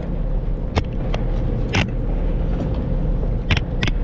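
Boat engine running steadily with a low rumble and a faint steady hum, broken by several short, sharp knocks on deck, one about a second in, one near the two-second mark, and two close together near the end.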